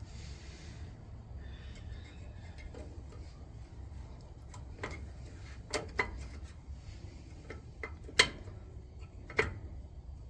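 Scattered metal clinks and knocks of brake parts being handled and fitted back together, the sharpest about eight seconds in, over a low steady hum.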